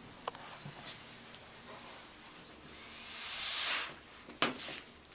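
Motorcycle tire bead being pressed off the rim with a manual bead breaker: a hiss with a faint high squeal, then a louder hiss about three seconds in, and a click near the end.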